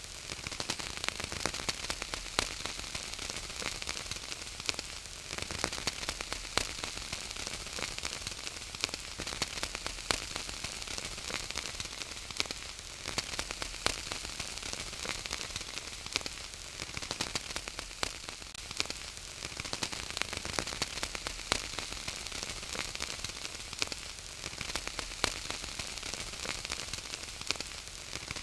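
Wood fire in a fireplace crackling and popping: a steady hiss with frequent sharp little pops scattered throughout.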